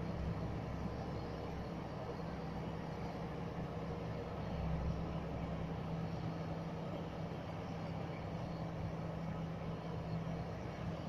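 A passenger train running along the track, heard from an open carriage window: a steady mechanical drone with a low hum and the even rumble of running gear.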